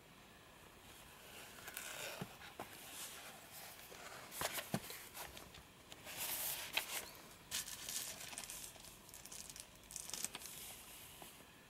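A cardboard toy box with a clear plastic window being handled and turned over by gloved hands: faint, irregular rustling and crinkling with a few light taps and knocks.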